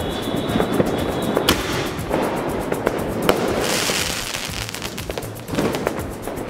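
Aerial crackling shells from a multi-shot fireworks cake bursting into a dense, rapid crackle of many small pops. Sharp reports stand out about a second and a half in and again about three seconds in.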